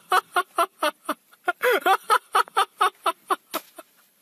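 A high-pitched voice in a quick run of short bursts that rise and fall in pitch.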